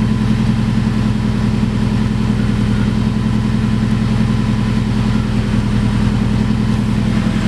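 2005 Subaru WRX's turbocharged flat-four engine idling steadily after a replacement ignition coil pack was fitted for a misfire; the idle sounds smooth, with no popping or stumbling.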